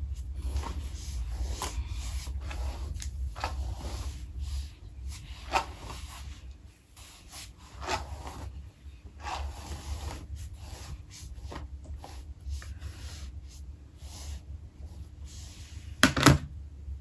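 Hair and wig being handled close to the microphone: soft rubbing and rustling with scattered light clicks over a steady low hum, and a sharper double knock about 16 seconds in.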